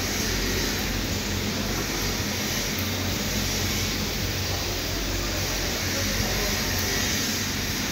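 Steady running machinery: an even hiss over a constant low hum, unchanging throughout, from the chamber's air-supply and cooling equipment.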